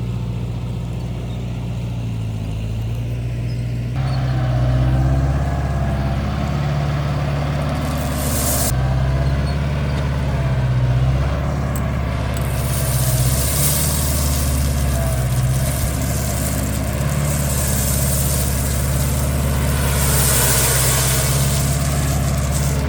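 Engine of earth-moving equipment running steadily, picking up load about four seconds in. Several swells of hissy noise ride over it later on.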